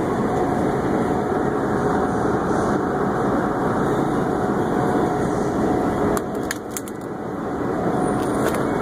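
Steady mechanical hum of a refrigerated meat display case, with a faint steady tone in it. A few light clicks come about six and a half seconds in.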